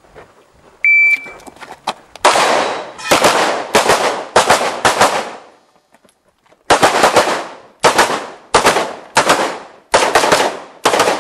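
An electronic shot timer beeps once, then a pistol fires a rapid string of shots, each with a short echo. The firing breaks off for about a second and a half near the middle while the shooter moves, then resumes with another fast string.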